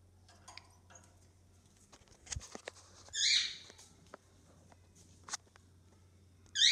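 Cockatiel squawking loudly twice, once about three seconds in and again at the end, with faint clicks and knocks in between.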